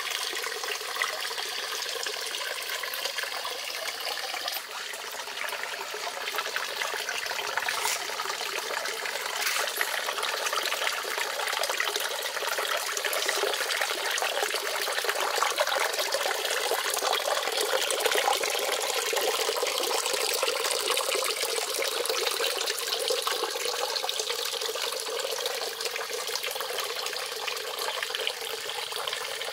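Thin streams of water pouring from fountain spouts into a shallow pond, a steady splashing trickle.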